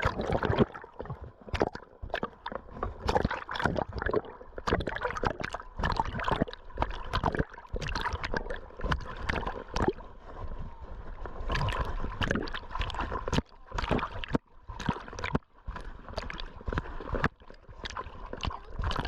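Irregular rustling, rubbing and knocking of a camera worn by a dog as she moves about, with frequent uneven bumps and scrapes.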